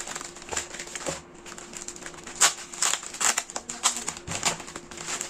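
Plastic courier mailer bag crinkling and tearing as it is pulled open by hand, in irregular crackles and rustles.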